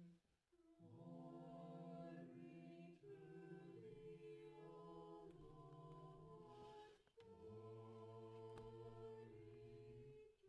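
Small church choir singing Orthodox chant a cappella: several voices hold long, steady chords, with a brief break about seven seconds in.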